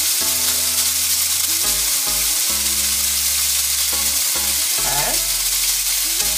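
Thinly sliced raw steak sizzling steadily as it sears in olive oil in a hot nonstick pan.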